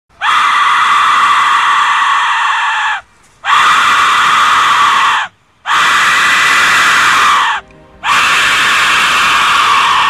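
Aztec death whistle, a skull-shaped whistle, blown in four long blasts of about two to three seconds each with short breaths between. It makes a high-pitched, rasping shriek that sounds like a human scream.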